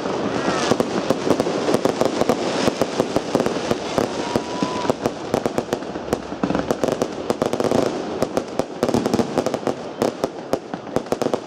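Aerial fireworks bursting in a rapid, unbroken string of bangs and crackles, many a second, getting somewhat quieter near the end.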